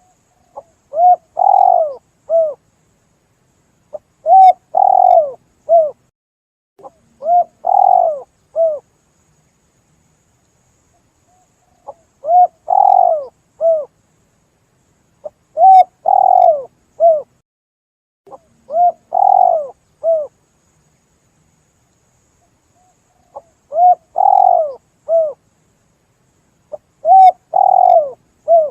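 Spotted dove (tekukur) cooing: short repeated coo phrases, about one every three seconds, in sets of three with a pause of several seconds between sets.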